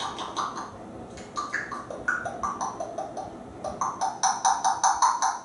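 African grey parrot calling in quick runs of short repeated notes, about six a second. The last run, near the end, is the loudest.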